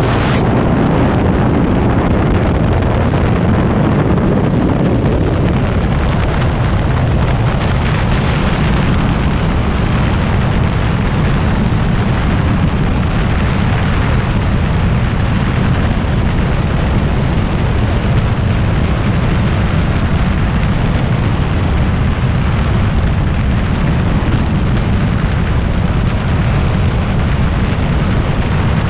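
Loud, steady rush of freefall wind buffeting a skydiving camera's microphone.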